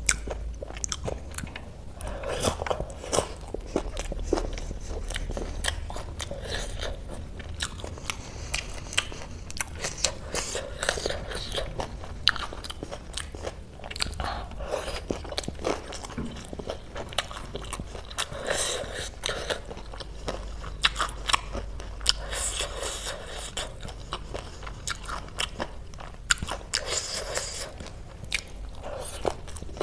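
Close-up eating sounds of spicy chatpatey snack mix: many sharp crunches and chewing in bouts every few seconds as mouthfuls are bitten and chewed.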